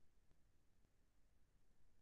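Near silence: faint low room tone.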